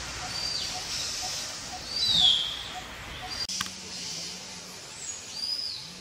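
Forest birds calling over a steady hiss of forest background: a few short, down-slurred whistled notes, the loudest about two seconds in, with more short high notes near the end. Through the first half a faint low note pulses about four times a second. A click and a sudden change of background come a little past halfway.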